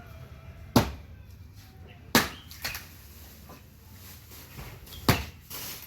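Four sharp knocks at irregular intervals, the strongest about a second and five seconds in, with a brief hiss near the end.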